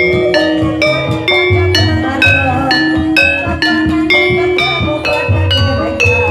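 Gamelan accompaniment for an ebeg horse-trance dance: tuned struck keys ringing in a steady repeating melody of about three notes a second, over a low recurring beat.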